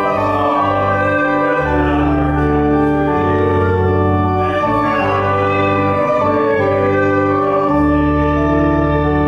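Church organ playing slow held chords, its bass note changing every second or two.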